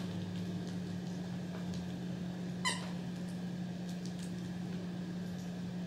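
A small dog gives a single short, high-pitched whimper a little under halfway through, over a steady low hum.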